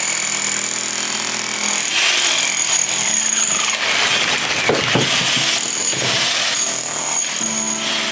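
Electric demolition hammer chiselling out old fireplace brickwork, with a steady hammering clatter and a high whine that stop briefly a couple of times.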